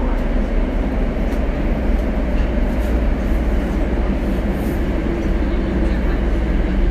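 Running noise heard inside a Tokyo Metro Marunouchi Line 02 series subway car under way: a loud, steady rumble of wheels and running gear.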